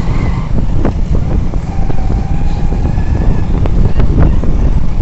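Motorcycle running along the road at speed, with a heavy, steady low rumble of wind and engine on the microphone. A few faint held tones and clicks sound over it.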